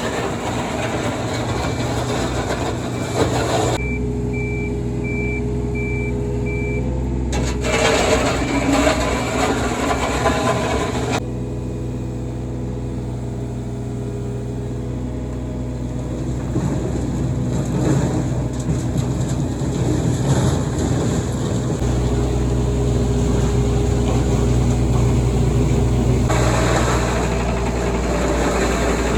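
Diesel excavator engine running under work, with a steady low engine hum and hydraulic noise. An intermittent beeping tone repeats through the first several seconds.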